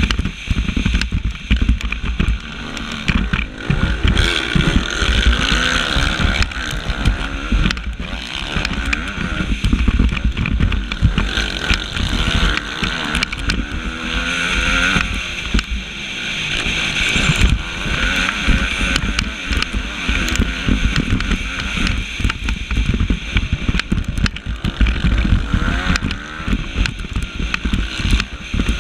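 Motocross bike engine, recorded on board, revving up and down over and over as the rider works the throttle and gears through the race. Steady rushing noise and frequent short knocks run alongside it.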